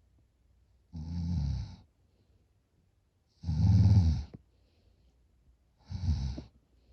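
A sleeping person snoring loudly: three rattling snores, each about a second long and about two and a half seconds apart, the middle one the loudest.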